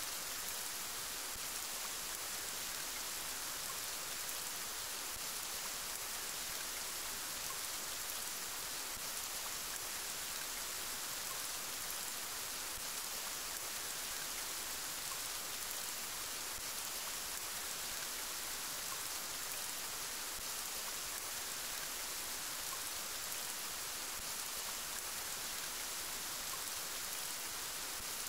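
Steady rain: an even hiss of many drops, brightest in the high end, with no thunder and no rise or fall in level.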